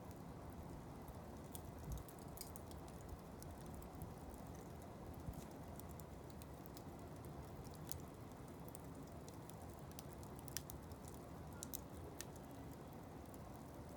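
Wood blocks burning in a fire basket, crackling: scattered sharp pops and snaps over a low steady rumble of the flames.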